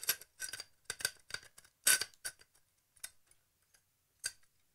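Metal Bowens-mount speed ring being twisted and tightened in the hands, its parts clicking and clinking in a quick irregular run of sharp ticks that thins out after about two seconds, with one last click near the end.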